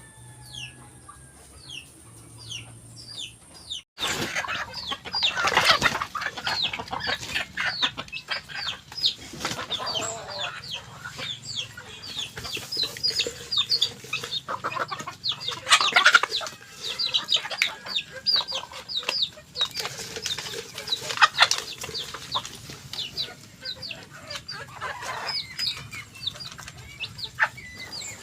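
A flock of chickens calling: many short, falling calls overlapping. The calls are faint and sparse at first, then loud and dense after an abrupt jump about four seconds in.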